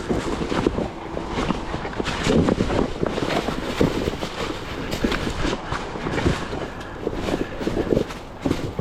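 Enduro dirt bike rolling down a steep, rocky downhill with little or no throttle: a continuous, irregular clatter of knocks and rattles from rocks, tyres and suspension.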